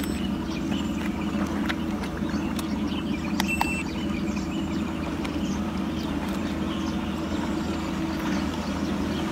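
Steady low motor hum that holds even throughout, with a few faint clicks over it.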